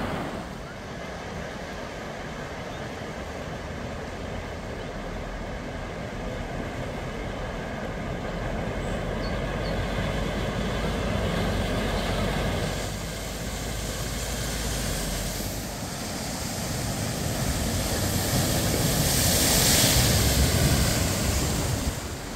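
Bicycles and cars driving through a deep flooded ford: churning, splashing water with a vehicle engine running under it, getting louder near the end as a car pushes through a big spray of water.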